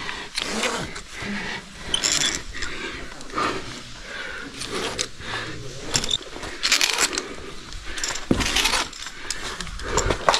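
Caver's rope-ascending gear, a handled ascender and carabiners on the rope, clinking and scraping irregularly while gloved hands and body scrape against the rock, as the climber hauls up over the lip of the pit.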